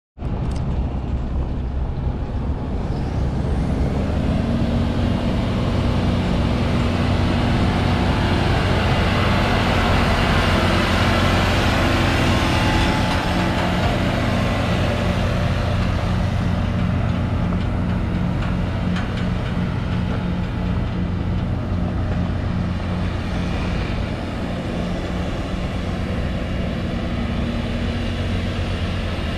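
Ford Cargo 3535M 6x4 concrete mixer truck driving past, its diesel engine running steadily with tyre noise. It grows loudest about ten to fourteen seconds in as the truck passes close, then eases as it moves away.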